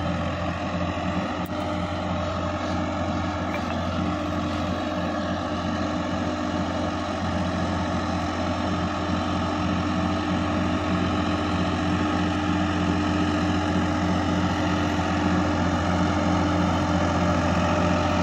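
Sonalika DI-50 RX tractor's diesel engine running steadily under load while tilling a flooded, muddy field, growing gradually louder as it comes closer.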